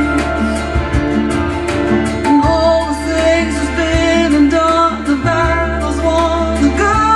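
A song with singing over a steady bass line and a regular beat, played back through Monitor Audio Bronze 6 floorstanding speakers driven by a PAS 240 stereo amplifier in Direct mode.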